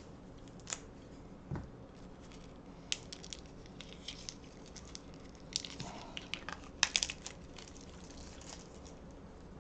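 Board game cards being handled and leafed through, fresh out of their wrapping: faint, scattered light clicks and crinkles, busier in the second half with the sharpest clicks about seven seconds in.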